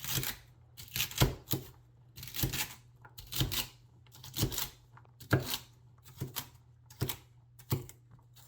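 Chinese vegetable cleaver slicing through celery stalks on a cutting board, about one stroke a second. Each stroke is a crisp crunch ending in a knock of the blade on the board, coming a little faster near the end.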